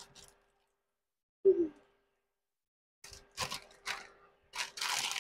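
Plastic instant-noodle packets crinkling and crackling as they are handled and opened, in the last two seconds or so. About a second and a half in there is one short, low hum-like sound.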